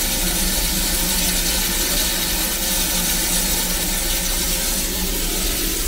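Darjeeling Himalayan Railway toy-train locomotive running steadily, a continuous mechanical rumble under a hiss.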